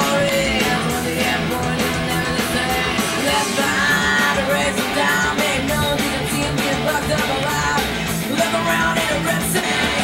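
Rock music with a singing voice, guitar and a steady beat.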